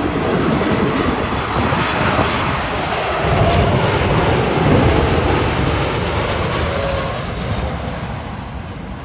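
Boeing 747 freighter's four jet engines passing low overhead on landing approach: a loud rushing jet noise with a faint whine that slides down in pitch. Loudest about four to five seconds in, then fading away over the last two seconds.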